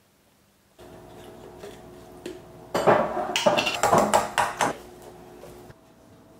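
A spoon clinking and scraping against a ceramic bowl as food is spooned in, a run of sharp knocks lasting about two seconds, over a faint steady hum.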